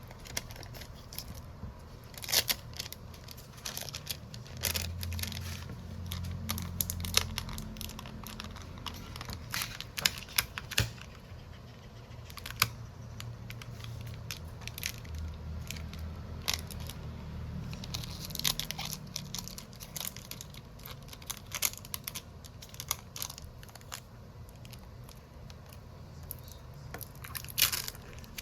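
Small repair tools clicking, tapping and scraping on an OPPO Reno8 5G phone during a screen replacement, with some tearing sounds. There are irregular sharp clicks throughout, and a faint low hum comes in twice.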